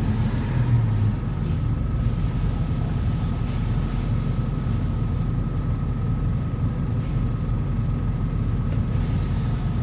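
Old vehicle's engine running with a steady low rumble, a faint thin steady whine running over it.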